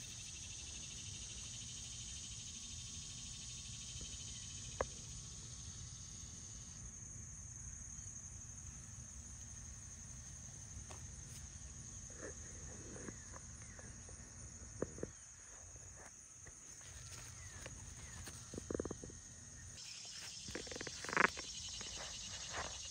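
Garden ambience: a steady high drone of insects over a low rumble, with a few short clicks and rustles in the second half, the loudest about 21 seconds in.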